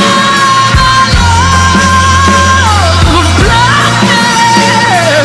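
Rock song with a singer holding long high notes that slide down at their ends, about two and a half seconds in and again near the end, over steady bass and drums.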